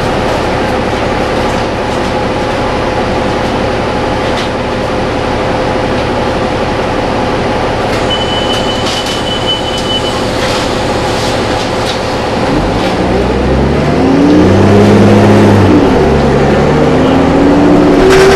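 Inside a New Flyer D40LF city bus, its Cummins ISL inline-six diesel idling with a steady hum, then revving up as the bus pulls away about two-thirds of the way in. The engine pitch rises, dips at a gear change and climbs again. A steady high beep sounds for about two seconds near the middle.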